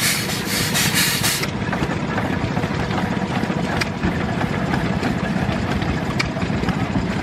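Steam roller venting steam in a loud hiss that cuts off about a second and a half in, leaving a low, steady engine sound with a few light ticks.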